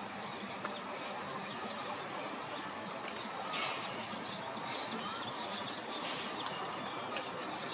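Steady outdoor background noise, with a distant murmur, and scattered short bird chirps over it.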